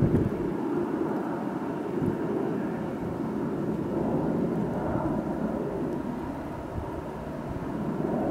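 Wind buffeting the microphone during snowfall: a low rumble that swells and eases in gusts.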